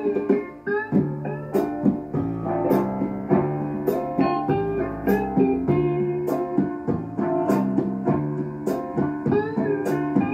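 Instrumental background music: a steady run of pitched notes, each starting sharply, played one after another with no singing.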